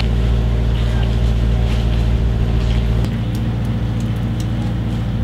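Diesel tractor engines idling steadily; about three seconds in the sound switches abruptly to a different engine's idle, with a more pulsing beat.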